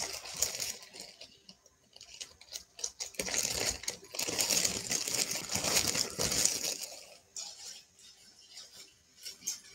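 Metal jewelry being handled: light clinking and rustling, busiest through the middle few seconds.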